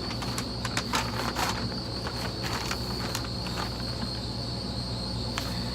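Insects chirring steadily at one high pitch, with scattered light clicks and rustles of handling over a low background hum.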